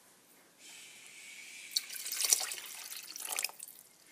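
Water being poured into a cooking pot already full of liquid, splashing as it lands. The pour starts about half a second in, with a few louder splashes in the middle.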